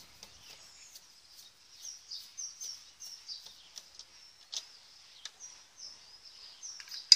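Small birds chirping in repeated short, high notes, with faint clicks from a screwdriver working a plastic socket plate and one sharp click near the end.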